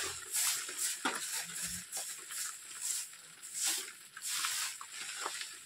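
Water splashing and sloshing in irregular bursts, several rushes a second or so apart.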